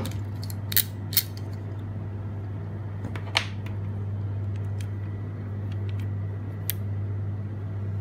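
A few sharp clicks from a hand crimping tool and a clear plastic RJ45 connector being handled: two about a second in, a louder one about three and a half seconds in, another near the end. A steady low hum runs underneath.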